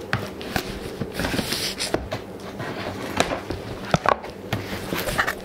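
A corrugated cardboard shipping box being opened by hand with scissors: irregular scraping, tapping and rustling of cardboard as the flaps are cut free and pulled back, with a longer rasp about a second and a half in.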